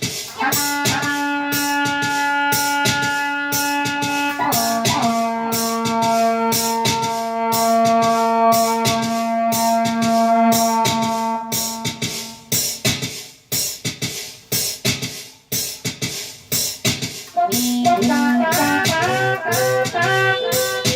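Music with a steady drum beat under a long, low held horn note. The note drops in pitch a little over four seconds in and stops about twelve seconds in. Wavering, warbling horn notes come in near the end.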